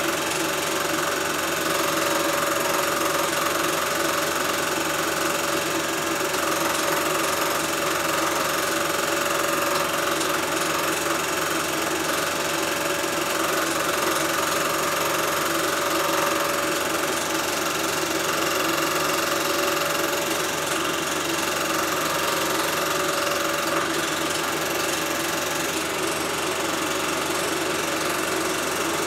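Film projector running with a steady mechanical whir and clatter, unchanged across the picture's scene cuts, as heard when silent home-movie film is transferred.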